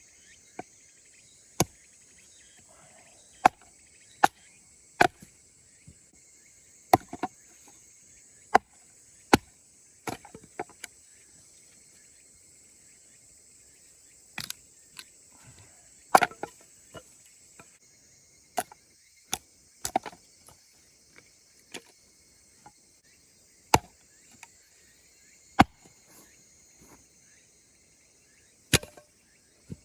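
Firewood being split by hand, about sixteen sharp wooden knocks at uneven intervals, a second or a few seconds apart. Insects chirr steadily underneath.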